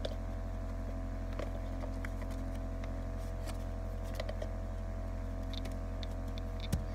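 A steady low hum with a few faint steady tones above it, and scattered soft clicks and taps.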